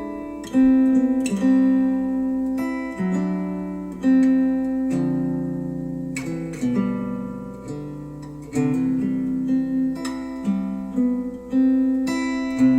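Music led by acoustic guitar, chords struck every second or two and left to ring out, played back through Wharfedale Denton 80th bookshelf speakers driven by a NAD C 388 integrated amplifier.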